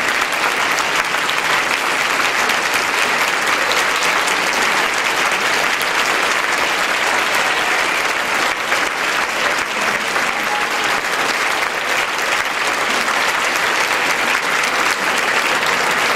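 A large audience applauding steadily, many hands clapping at once in a sustained ovation.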